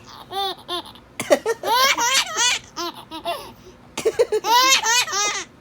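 A baby laughing in three bursts of high-pitched belly laughter, set off by his father's fake coughs.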